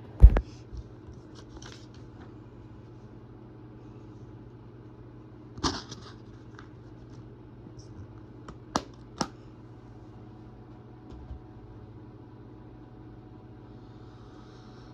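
Handling of plastic DVD cases and discs: a loud knock just after the start, then a few sharp plastic clicks, two of them close together about nine seconds in, over a low steady room hum.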